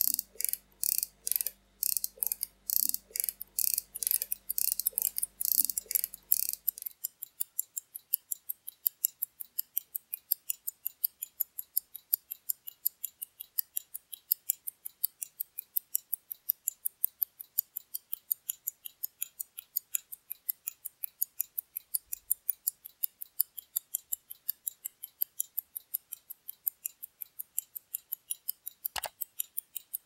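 Amphibian 17-jewel mechanical wrist watch ticking, an even run of sharp ticks at about five a second. The ticks are louder for the first seven seconds or so, with a faint hum beneath them, and a single sharp click comes near the end.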